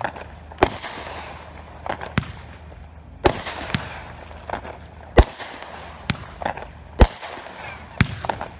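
A 200-gram consumer fireworks cake firing shot after shot: about a dozen sharp bangs at uneven intervals, less than a second apart, over a steady crackling hiss from the sparkling bursts.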